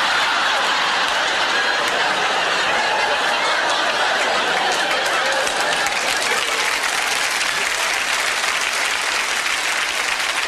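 Studio audience applauding steadily, with a little laughter mixed in, fading near the end.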